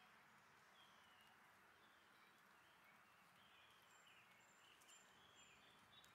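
Near silence: faint outdoor ambience with distant, faint bird chirps.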